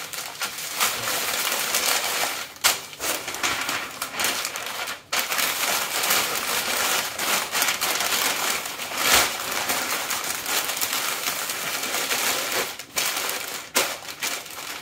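Pink butcher paper rustling and crinkling as it is folded and pressed tight around a rubbed brisket, with a few sharper crackles as folds are creased.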